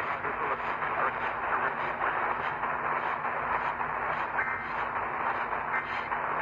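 Steady radio static: an even hiss heard through a narrow-band receiver, with no voice on the channel.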